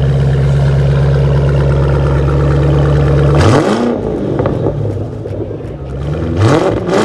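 V8 engine running steadily, then revved twice, about three and a half seconds in and again near the end, its pitch climbing and dropping back each time.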